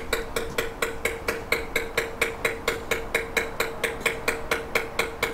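Rapid, even hammer blows on metal, about four or five a second, each one ringing with a clear pitch.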